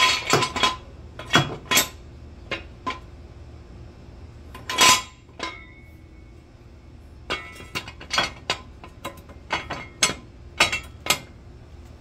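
Steel jack stand being set and adjusted under the raised UTV's rear suspension arm: a scattered series of sharp metal clinks and clanks, some ringing briefly, the loudest about five seconds in and a quicker run of clicks in the last few seconds.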